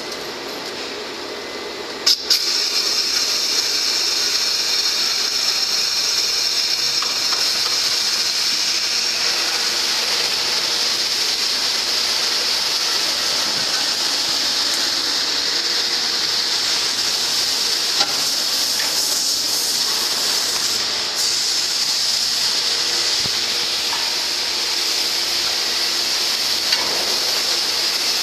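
Steady loud hissing from a crucible of molten aluminium being stirred by a rotating impeller. It sets in abruptly after a sharp click about two seconds in.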